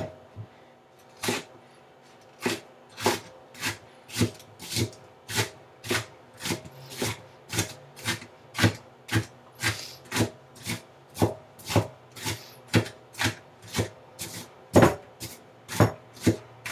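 Large kitchen knife chopping onion on a cutting board, a steady run of sharp knocks a little over two a second as chunky dice are cut finer.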